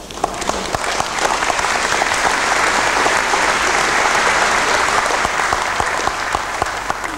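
Audience applauding. The clapping builds over the first second or two, holds, then tapers off near the end.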